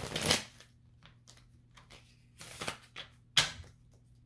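A deck of tarot cards being shuffled by hand: a quick riffle that bridges the cards down at the start, then scattered light clicks and taps of cards, with one sharp snap of the deck about three and a half seconds in.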